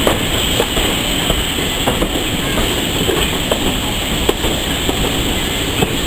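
Heritage railway train running along the track: a steady rumble with irregular clicks and knocks from the wheels over the rails.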